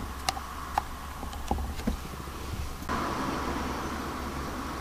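Low, steady hum of a stopped vehicle's engine with scattered sharp taps. About three seconds in, the sound cuts to a steadier hiss heard inside the car.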